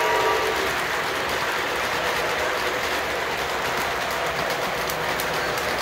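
Model freight train rolling past on its track, a steady whirring clatter of wheels on rail. The tail of a horn sounds at the start, stopping about half a second in.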